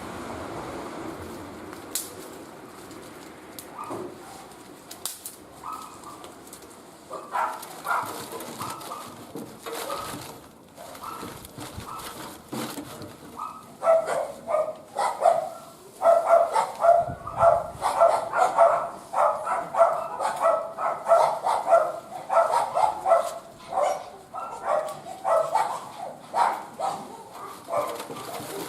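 A dog barking over and over, a few scattered barks at first, then a steady run of barks from about halfway through. Sharp crackles from the wood fire pop through now and then.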